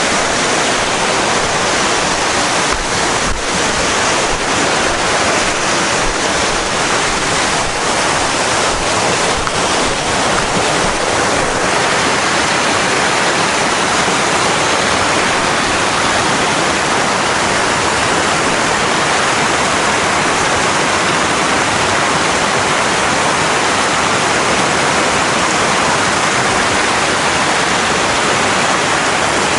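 Steady rushing noise of a mountain bike being ridden on a trail: wind on the camera microphone and tyre noise, with a few faint knocks and rattles in the first ten seconds or so.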